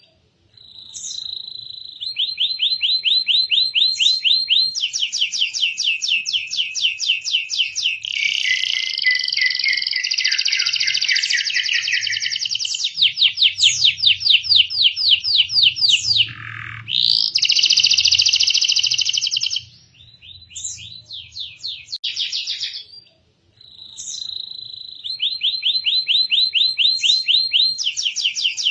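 Domestic canary singing: long, fast trills and rolls, one after another, with a downward-sliding whistle about halfway through and a few short pauses.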